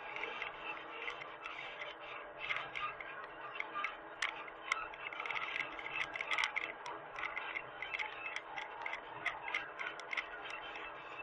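Irregular, rapid clicking and ticking with some scraping, over a faint steady mechanical hum.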